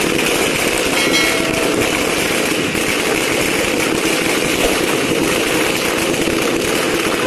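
A long string of small firecrackers going off in a rapid, unbroken rattle of bangs.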